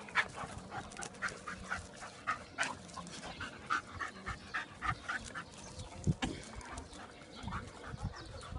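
A dog giving many short, high-pitched whines and yips in quick irregular succession, with a few low thumps in the last few seconds.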